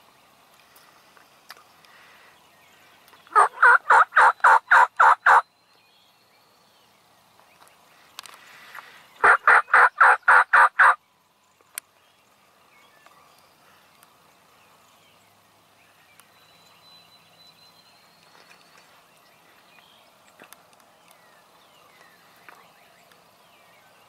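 Two loud series of wild turkey yelps a few seconds apart, each about ten evenly spaced notes, about five a second.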